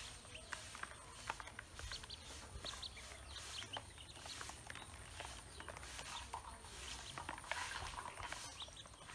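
Ducklings pecking feed in a plastic basin: a quick, irregular patter of light bill taps, with faint high peeps among them.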